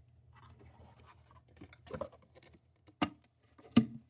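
Plastic parts of a Eureka AirSpeed vacuum cleaner being handled, with light rustling and two sharp plastic clicks near the end, the second the loudest.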